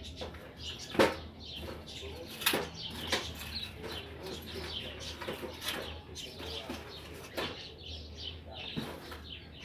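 Small birds chirping again and again in short, quick falling notes, with several sharp clicks or knocks, the loudest about a second in.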